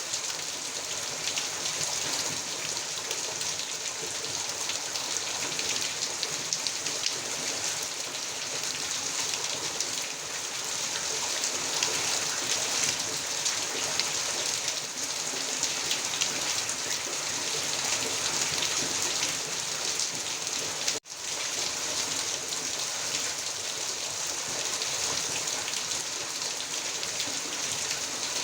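Heavy rain falling steadily, a dense even hiss of drops on surfaces. The sound cuts out for a split second about three quarters of the way through, then resumes.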